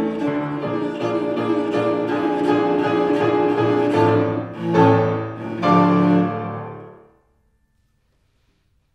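Cello and piano playing the fast closing bars of a tarantella, ending on two loud accented chords about five and six seconds in; the last chord dies away and the music stops about seven seconds in.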